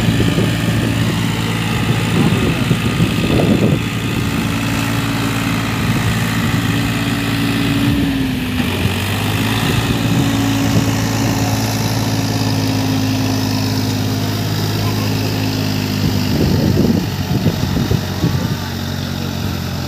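Eicher 557 4WD tractor's diesel engine running steadily under load as it pulls a rotavator through deep mud, its pitch dipping briefly about eight seconds in before recovering.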